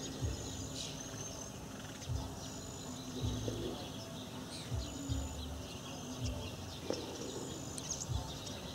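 Outdoor ambience of steady insect trilling with a few faint, short bird calls, broken by repeated low thumps on the microphone.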